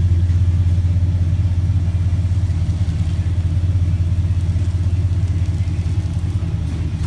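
Chevy 3500 tow truck's engine running with a steady low drone.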